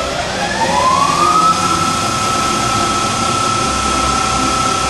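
Acer E-lathe 1440V's variable-frequency-driven spindle motor speeding up with a rising whine, which levels off to a steady high tone about a second and a half in.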